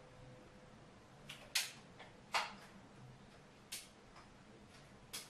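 CO2-powered Colt Single Action Army .43-calibre RAM revolver firing powder rounds at a metal plate. There are four sharp shots, the first two about a second and a half and two and a half seconds in being the loudest, and two lighter ones later, with a few fainter clicks between.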